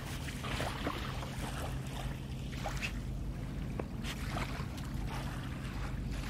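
Soft Coated Wheaten Terrier digging in sand with its front paws: quick, irregular scratching and scraping strokes over a steady low rumble of wind.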